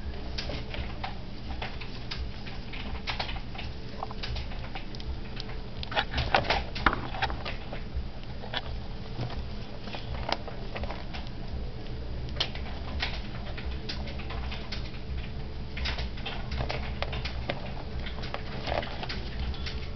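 Pet rats scrabbling in their hay and straw nesting material: irregular scratches, clicks and rustles, with a louder flurry about six seconds in, over a steady low hum.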